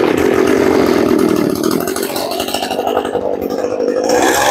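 Small two-stroke Echo brush-cutter engine catching on a pull of the recoil starter cord and running steadily, its pitch rising a little near the end.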